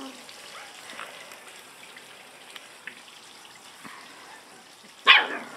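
Puppies play-fighting on grass: faint scuffling and rustling with small ticks, then one sudden sharp puppy yelp about five seconds in.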